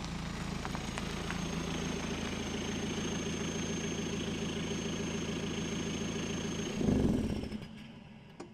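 Straight-piped BMW 320d four-cylinder turbodiesel idling steadily with a faint high whine, then switched off about seven seconds in. There is a short shudder as it stops, the whine glides down and fades, and a couple of clicks come near the end.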